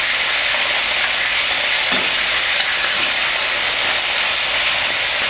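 Pork rib pieces deep-frying in hot oil: a steady, even sizzle as the ribs are browned golden.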